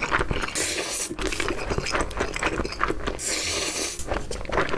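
Close-miked slurping of noodles, with wet mouth clicks and smacks. Two long hissing slurps come about half a second in and again about three seconds in.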